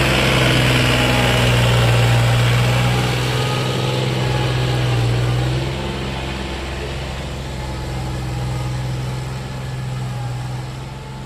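Mahindra Oja 3140 tractor's 40 hp diesel engine running steadily while pulling a tine cultivator through the soil. The engine note is steady throughout and becomes somewhat quieter about six seconds in.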